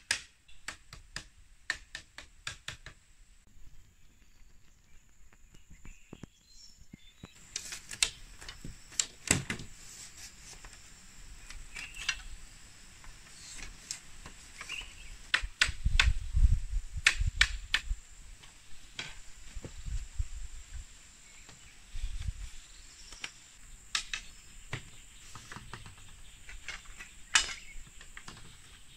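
Thin bamboo strips clicking and clattering as they are handled and woven into a fence panel, starting with a quick even run of light taps for about three seconds, then scattered sharp clicks and a few dull knocks. A steady high-pitched insect buzz runs underneath.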